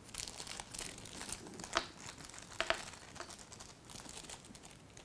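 Small clear plastic parts bag crinkling faintly as fingers work it open, with a few sharper clicks about two to three seconds in.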